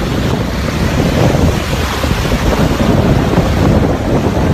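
Strong wind buffeting the microphone over waves breaking on a sandy beach: a continuous loud rumble and wash of surf.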